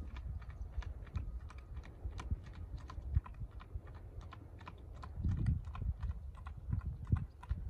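A ridden horse's hoofbeats in a steady four-beat gait, light sharp clicks about four a second, over a low rumble.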